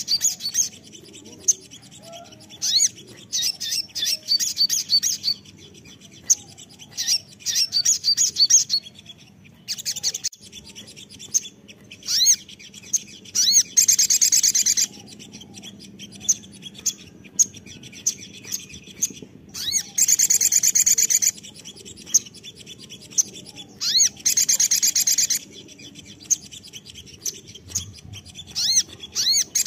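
Olive-backed sunbird singing: bursts of fast, high twittering trills, each lasting a second or two, with short pauses between them.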